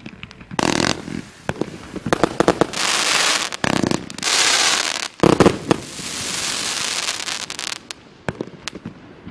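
Aerial fireworks going off overhead: a run of sharp bangs, then long spells of dense crackling, tailing off to a few scattered pops near the end.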